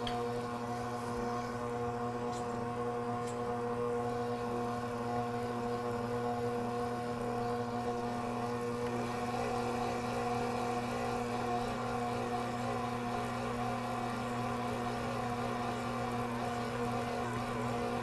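Smeg 5-quart, 600-watt stand mixer's motor running at a steady hum, its dough hook kneading a heavy bread dough in the steel bowl.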